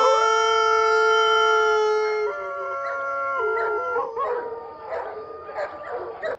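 A cartoon man's long, drawn-out yell of "Noooo", held on one steady note, then stepping up and back down. From about four seconds in it fades into fainter, wavering cries that cut off at the end.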